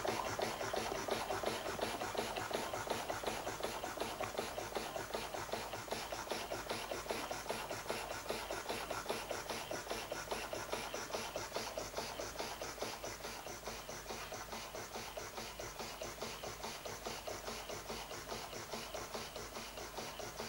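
Model steam engine running: a small horizontal single-cylinder engine fed from a vertical boiler, chuffing in a rapid, even rhythm. It grows slightly quieter toward the end.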